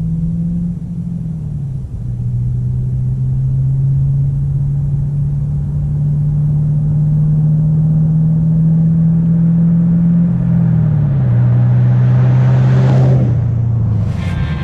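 Camaro engine running at a steady low note that drops in pitch twice, about a second in and again near the ten-second mark. A rushing hiss builds near the end before the engine sound fades.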